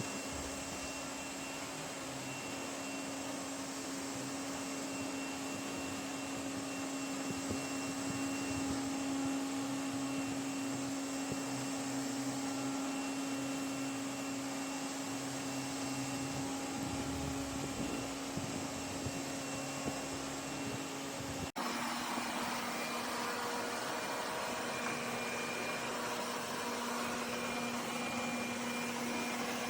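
Vacuum cleaner running steadily, a continuous motor hum with airflow noise. About three-quarters of the way through it breaks off for an instant, and after that the hum sits slightly lower.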